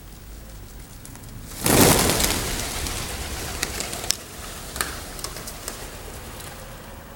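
A flock of feral pigeons taking off together: a sudden loud rush of flapping wings about two seconds in that fades as the birds fly off, with a few sharp wing claps after it.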